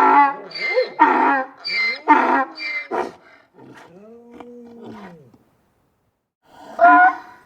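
Donkey braying: a run of loud, alternating hee-haw calls, trailing off into a quieter drawn-out note about four seconds in. After a brief silence a new bray begins near the end.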